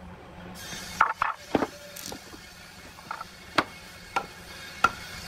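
Hammer knocking a wooden bed rail down into the slotted joint of a log leg: sharp wooden knocks, three in quick succession about a second in, then a couple of light taps and three more single blows spaced roughly half a second apart toward the end.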